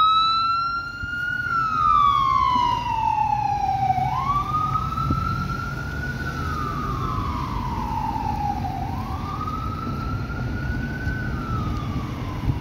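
Horton ambulance's electronic siren on wail: about three cycles, each a quick rise followed by a long falling glide over four to five seconds. It grows fainter as the ambulance drives away, over a low rumble of traffic.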